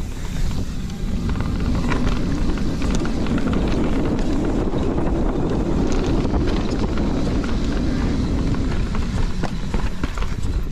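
Mountain bike descending a dirt trail at speed: wind rushing on the microphone over the rumble of knobby tyres on dirt, with scattered clicks and rattles from the bike over bumps.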